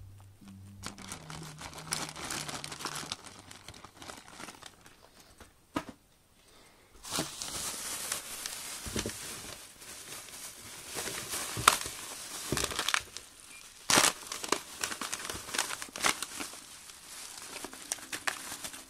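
Plastic packaging crinkling and crackling as hands unwrap parts: bubble wrap and plastic bags rustling, busiest in the second half, with a few sharper crackles.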